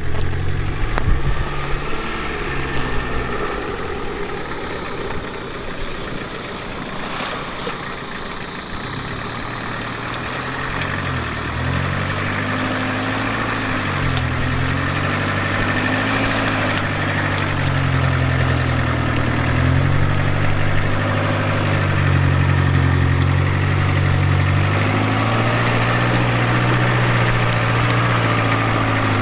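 Engine of a lifted off-road vehicle on big tyres, driving through a marshy water crossing toward the listener. The engine grows louder from about a third of the way in, its revs rising and falling.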